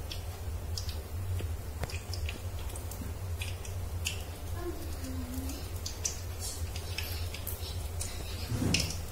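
Mustard seeds in hot oil in a steel wok, starting to splutter: irregular sharp little pops and crackles over a low steady hum, with one louder knock near the end.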